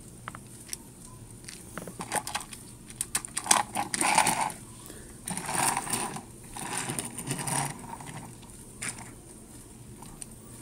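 Plastic Trackmaster toy train engine and cars clicking and clacking as they are handled and coupled, with three short stretches of rolling and scraping noise in the middle as they are pushed across a wooden surface.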